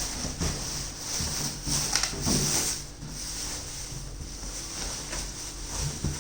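Cardboard box and packing being handled as a microwave oven is lifted out: rustling, scraping and a few short knocks, mostly in the first half, with another knock near the end.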